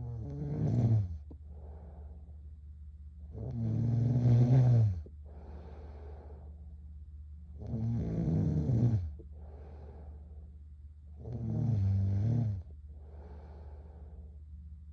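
A girl snoring in her sleep, with four loud, rattling snores about every four seconds, each followed by a softer, breathy sound.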